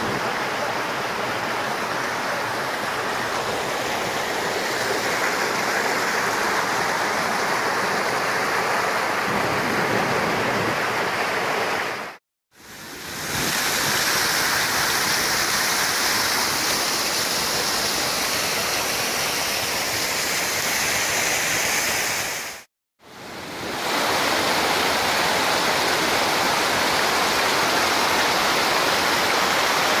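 Waterfall and its creek rushing over mossy rocks close by: a steady, loud roar of water. It drops out to silence twice for a moment, about 12 and 23 seconds in.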